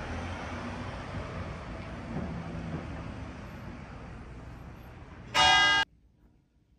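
Steady outdoor ambience, then about five and a half seconds in a loud, pitched tone lasting half a second that cuts off abruptly into near silence.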